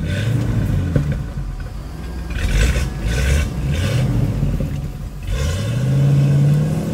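A vehicle's engine pulling slowly along a rough, muddy trail, its revs rising and falling several times, then climbing about five seconds in and holding higher. A couple of short bursts of rattle and noise from the rough track come in the middle.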